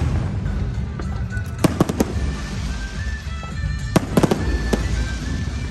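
An aerial fireworks display: sharp bangs of bursting shells in two clusters, one about a second and a half in and another about four seconds in, over a continuous low rumble.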